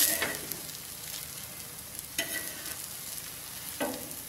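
Rolled dosa sizzling steadily on a hot dosa tawa as it roasts crisp, with a few brief scrapes of a metal spatula against the pan.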